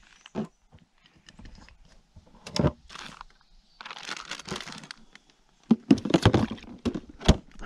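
Plastic zip-top bag crinkling and rustling as it is handled, then the lid of a plastic cooler opening and a run of sharp clacks as bottles and items are put inside it, about two-thirds of the way in.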